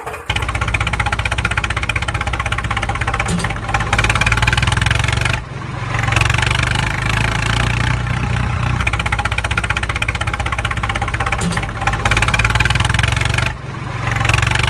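A vehicle engine running steadily with a fast, even pulse, dropping off briefly about five seconds in and again near the end.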